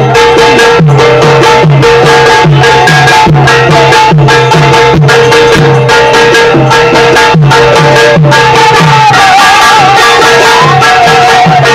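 Devotional kirtan music: a hand drum plays a steady rhythm of deep strokes that slide down in pitch, about two to three a second, over sustained held notes and sharp hand-cymbal clashes. A wavering melody line comes in about nine seconds in.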